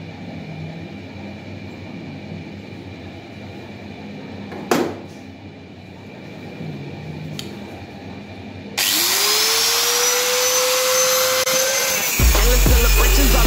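Hand-held angle grinder with a flap disc switched on about two-thirds of the way in, its motor spinning up with a rising whine and then running steadily. A couple of knocks from handling come before it, and near the end music with a heavy bass beat comes in.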